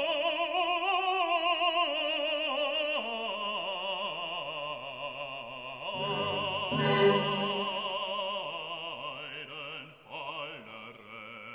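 Opera music: a singer holds long notes with wide vibrato over the accompaniment. It gets quieter about ten seconds in.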